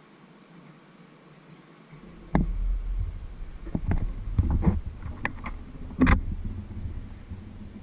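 Refrigerator door being handled and swung open close to the microphone: a run of knocks and bumps over low rumbling, the loudest knock about six seconds in.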